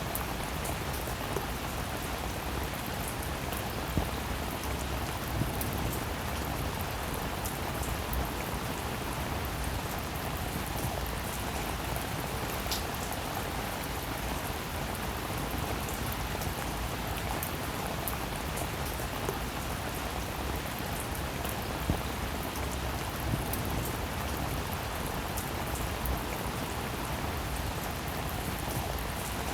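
Steady rainfall, an even hiss with occasional sharper taps of single drops.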